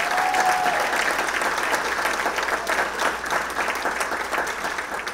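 A large audience applauding, a dense and steady round of clapping. A single short held tone rises above it right at the start.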